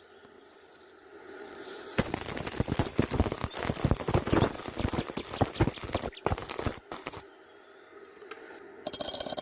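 Stick (SMAW) welding arc crackling in dense, irregular sputters, starting about two seconds in and stopping about five seconds later. Near the end a rapid, regular bird chirping starts.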